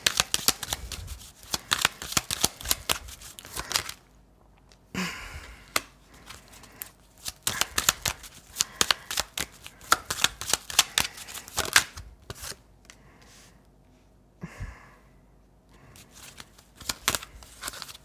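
A deck of oracle cards being shuffled and handled: a dense run of quick card flicks and clicks, pausing briefly about four seconds in and again around fourteen seconds.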